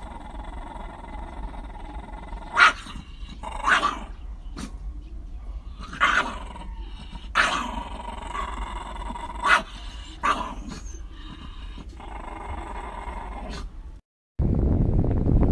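Shiba Inus growling at each other in a face-off, with about six short, sharp snarling barks spread across the middle of the stretch. Near the end it cuts off, and a loud rushing noise takes over.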